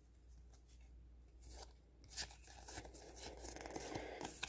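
A small stack of Pokémon trading cards being flipped through by hand: a few soft flicks, then a longer faint sliding rustle of card against card in the second half.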